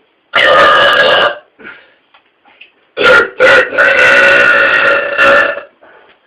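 A man belching loudly: one burp about a second long, then after a pause two short burps that run into a long, drawn-out belch of about two seconds.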